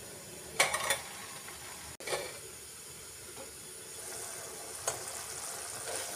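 Cream-and-masala gravy sizzling and bubbling under a steel lid in a kadhai, a steady hiss, with metal clinks from the lid. About four seconds in the lid is lifted and the sizzling gets louder, with another clink of the lid soon after.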